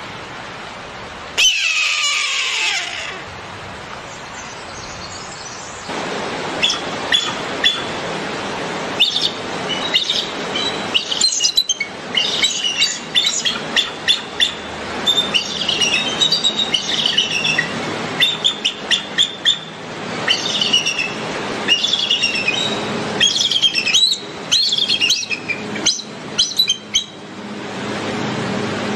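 A red-tailed hawk's single harsh scream, falling in pitch, about a second in. From about six seconds on comes a bald eagle's call: high, thin chirping and chittering in quick bouts of short notes, over a steady background hiss. This is the real eagle sound, unlike the hawk scream that films often dub onto eagles.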